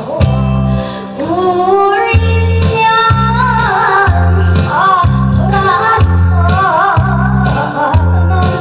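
A woman singing a Korean popular song (가요) into a microphone over a recorded backing track with a steady bass beat; her held notes waver with vibrato.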